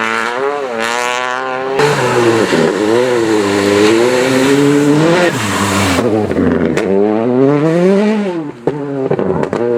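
Rally car engine revving hard, its pitch climbing and dropping several times as the driver accelerates and lifts off. A loud rushing hiss joins it from about two seconds in until about six seconds.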